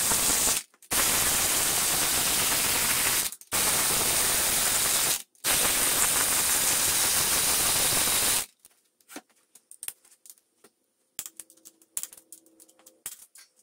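Cordless ratchet running down the 14 mm bolts of a motor mount bracket on a Toyota 1NZ-FE engine, in four runs with short pauses between them. From about 9 seconds in, scattered light clicks of a torque wrench's ratchet as the bolts are brought up to torque.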